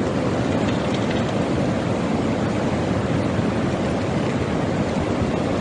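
Swollen flood river rushing past, a steady loud noise of fast muddy water.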